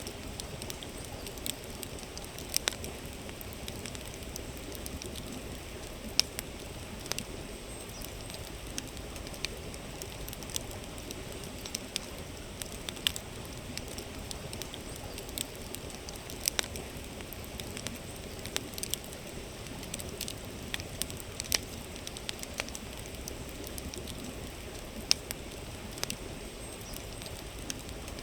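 Campfire crackling with sharp, irregular pops over the steady rush of a flowing river.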